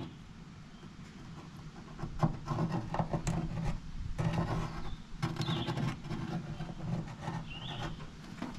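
Touch-up paint pen dabbed and rubbed around the cut edge of a hole in sheet metal: a quiet first couple of seconds, then an irregular run of light taps and scrapes. A bird chirps a few times in the background.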